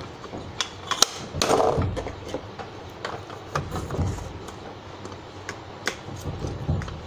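Scattered light clicks and knocks of submersible pump parts being handled: impellers and bowls fitted onto the pump shaft of a V3 stage stack, and a flat metal gauge strip slipped into the gap to check it.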